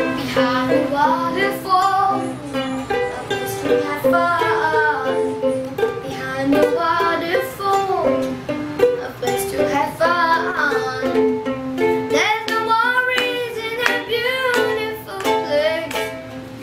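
A child strumming chords on a ukulele and singing along, the strums coming in a steady rhythm under the sung melody.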